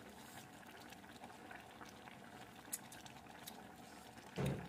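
Pot of coconut-milk broth boiling on a gas burner: faint, steady bubbling with small pops, and one sharp tick about three seconds in. A brief low voice sound near the end.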